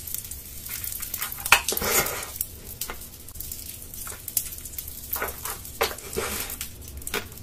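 Close-up mouth sounds of eating crunchy sugar-crusted candy: irregular wet crackles and crunches with sharp clicks scattered throughout.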